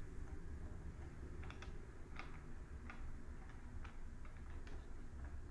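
Magnetic decision-maker pendulum desk toy swinging, giving faint, irregularly spaced ticks from about a second and a half in, over a low steady hum.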